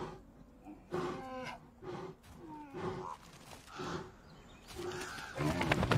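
Short, low animal calls repeated about once or twice a second, with a louder, longer call near the end.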